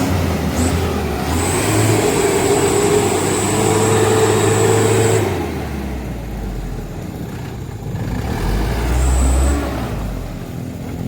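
Mitsubishi Canter truck's diesel engine revving hard under a heavy load, with a steady high whine over the engine note, for about five seconds. It then drops back, and surges again briefly near the end.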